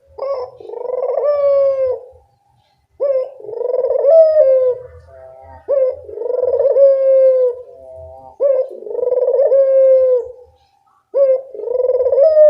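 Barbary dove (burung puter) cooing, five calls spaced evenly a little under three seconds apart, each a short clipped note followed by a longer rolling coo that falls slightly at the end.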